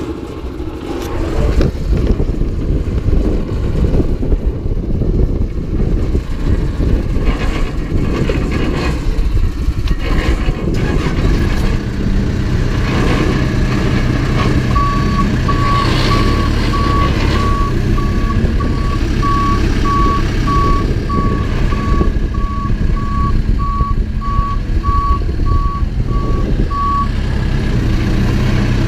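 Backhoe's diesel engine running under load, with a few knocks early on. About halfway through, its reversing alarm starts a steady series of single-pitch beeps that stops shortly before the end.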